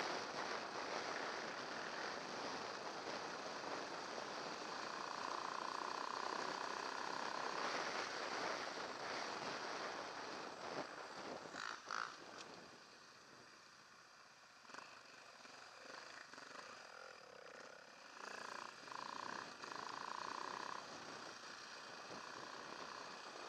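Off-road motorcycle engine running while riding a rough grass track, with wind noise on the bike-mounted microphone. It drops quieter for a few seconds about midway as the bike slows.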